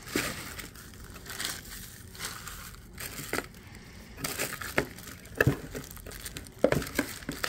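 Hands rummaging through crinkle-cut shredded paper filler in a cardboard box: irregular rustling and crinkling with sharper crackles, getting busier in the second half.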